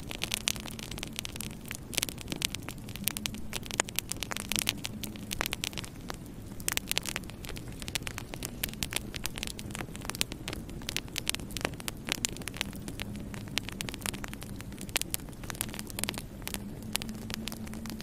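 Wood fire burning in a fireplace, crackling with frequent irregular sharp pops and snaps over a steady low hum.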